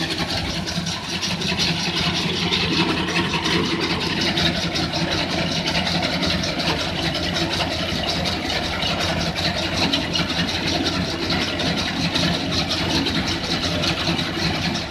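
Tractor diesel engine running steadily, with a fast, even clatter throughout.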